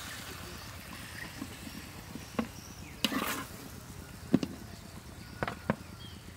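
Metal tongs clicking and knocking against a metal wok and tray as glazed fried chicken pieces are moved, a handful of sharp clicks with one brief scrape about three seconds in.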